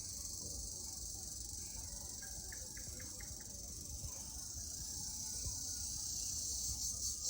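Crickets (jhijhi poka) trilling continuously in a high, shrill band. Near the end the trill breaks into a regular rapid pulsing, and a few faint short chirps are heard about two to three seconds in.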